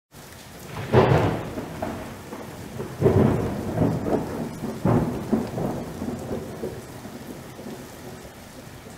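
Three rolls of thunder about two seconds apart, each starting suddenly and fading away, over a steady hiss of rain.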